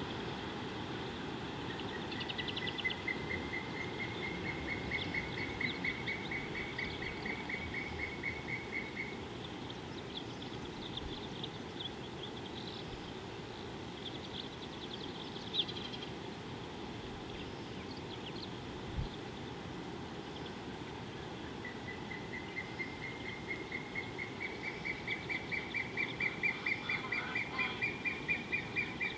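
A bird calls in a long string of rapid repeated notes that rise slightly in pitch, once starting about two seconds in and again louder from about two-thirds of the way through. Other birds chirp higher in between, over a steady low background rumble of the open bush.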